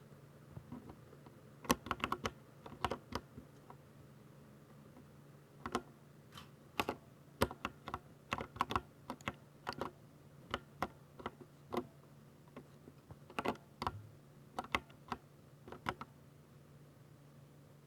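Typing on a Ducky 60% mechanical keyboard with silver switches: irregular runs of sharp key clicks with short pauses between them, including a gap of about two seconds a few seconds in.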